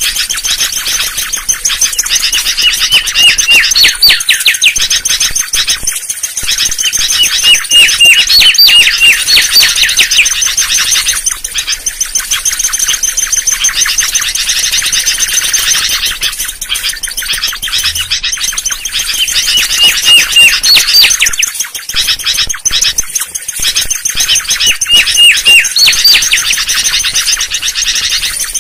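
Mangrove whistler singing: a run of quick whistled notes that climbs to a higher closing note, repeated about every five seconds, over a steady high hiss.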